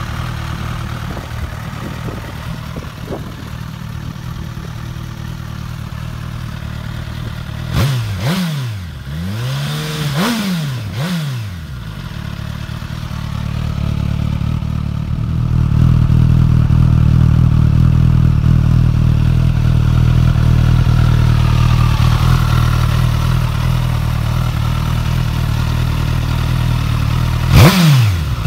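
2017 Suzuki GSX-S1000's inline-four idling through its stock exhaust, blipped quickly twice about a third of the way in, then idling steadily and louder. Near the end a sharp rev comes with the Yoshimura Alpha slip-on muffler, run without an insert, fitted.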